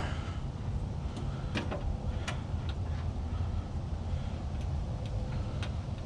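A few light, sharp clicks and taps spread over several seconds, over a steady low rumble.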